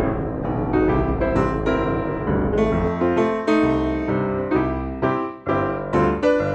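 Background music: a keyboard playing a run of quick notes and chords.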